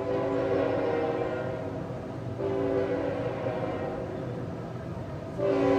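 Nathan K5HL five-chime air horn on a CSX diesel locomotive sounding a chord in long blasts: one for about two seconds, a second after a short break that fades off, and a louder third starting near the end.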